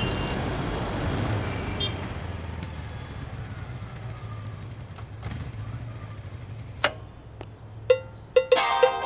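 Low, steady rumble of a vehicle engine or road traffic that slowly fades. In the last two seconds sharp percussion strikes begin as music starts.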